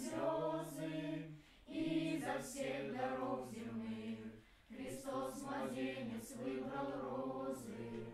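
Choir singing a slow, chant-like hymn, with two short pauses, about one and a half and four and a half seconds in.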